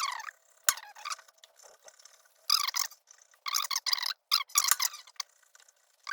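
Irregular bursts of scraping and rattling from hand work on a sticking boat starter motor as it is freed up.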